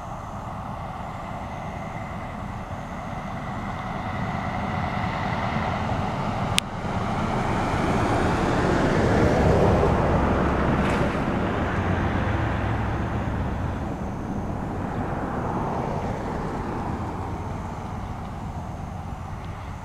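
A passing vehicle: a broad rushing noise that swells to its loudest about halfway through and then fades away. A single sharp click comes about six and a half seconds in.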